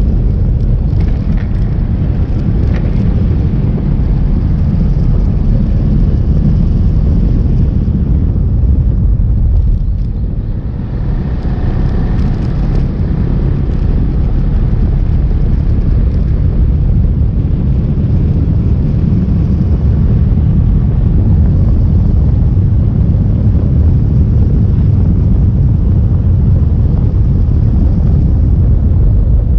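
Onboard sound of a vehicle driving along a road: a loud, steady low rumble of wind and road noise, easing briefly about ten seconds in and then coming back.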